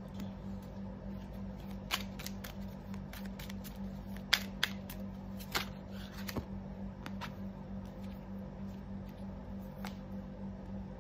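Tarot cards being handled and shuffled by hand, giving a scattering of short, sharp card snaps and clicks, the loudest about four seconds in, over a steady low hum.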